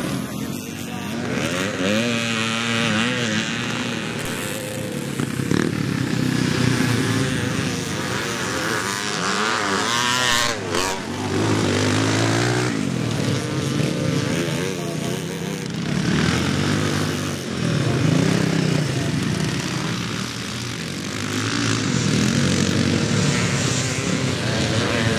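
Classic motocross scrambles motorcycles racing past on a muddy track, engines revving up and down as each rider accelerates and backs off. Several bikes are heard one after another, their engine notes rising and falling repeatedly.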